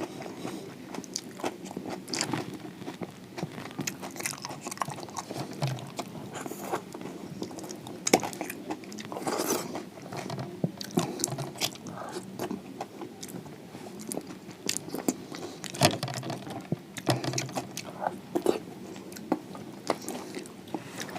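Close-miked eating of a crispy fried samosa with raw onion and chili: irregular crunching bites and chewing with no pauses.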